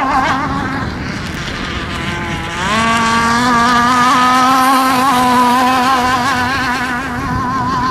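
Modified 29.5 cc Zenoah two-stroke petrol engine of a radio-controlled race boat running at high revs. Its pitch wavers at first, then rises and grows louder about three seconds in, and holds steady after that.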